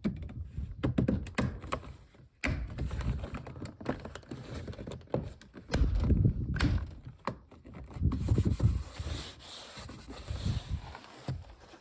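Irregular clicks, knocks and low thumps of hands working on a 2002 Volvo S60's door and its handle parts, with heavier knocks about six and eight seconds in.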